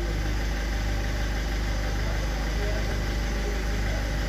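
Ford Fiesta's engine idling steadily, heard from inside the cabin.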